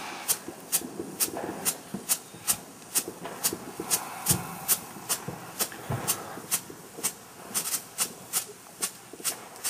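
A 'Laser Flash' strobe firework burning, its strobe giving sharp pops about two or three times a second over a steady hiss.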